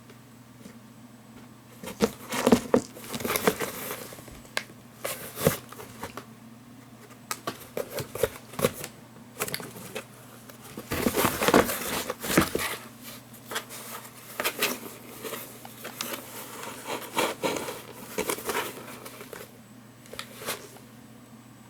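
Kitten playing with a ball: irregular rustling and tapping that comes in bursts from about two seconds in, loudest twice, and stops shortly before the end.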